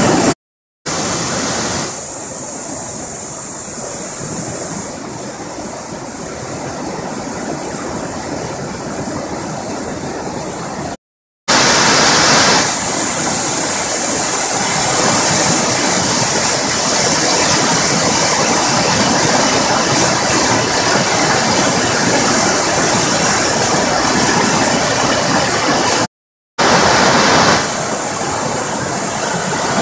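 Floodwater rushing and churning over a concrete weir and sluice, a loud steady roar of white water from a river running very high after heavy rain. It is broken by three brief total silences at edit cuts, about half a second, eleven seconds and twenty-six seconds in.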